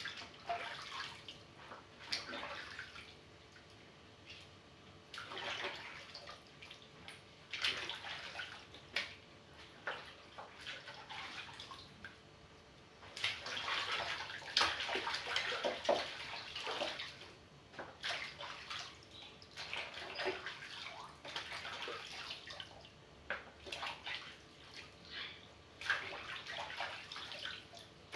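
Water splashing and sloshing in irregular bursts every second or two, busiest around the middle.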